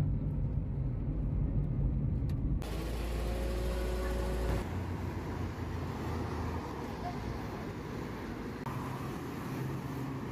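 Vehicle engine running with road and traffic noise. The sound shifts abruptly about two and a half and four and a half seconds in, and again near the end.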